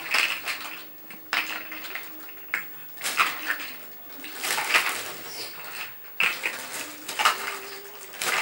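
Large plastic toy building blocks clattering against each other as hands rummage through a pile of them and a crinkling plastic bag, in irregular bursts every second or so.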